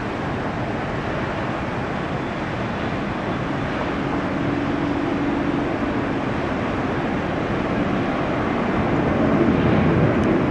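Airplane engine noise at an airport: a steady rush that slowly grows louder, with a faint steady hum partway through.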